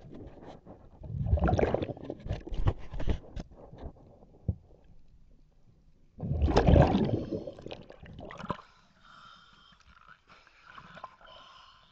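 A diver's exhaled air bubbling out of the regulator underwater in two long bursts about five seconds apart, with smaller clicks and gurgles between. Near the end, water sloshes at the surface against the hull.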